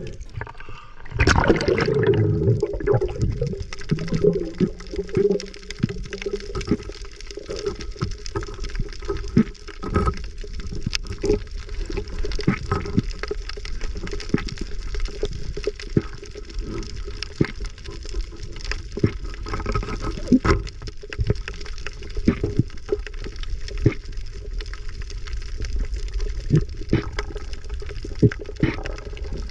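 Underwater sound picked up by a camera in its housing: a steady wash of water noise with many scattered sharp clicks and crackles. The water noise is louder for a second or two near the start.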